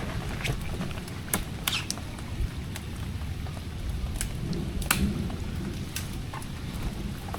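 Rain falling, with scattered sharp taps of drops striking a surface over a steady low rumble.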